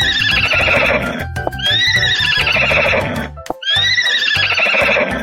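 An animal call sounding three times, each about a second and a half long and falling in pitch with a quavering edge, over background music with a steady beat.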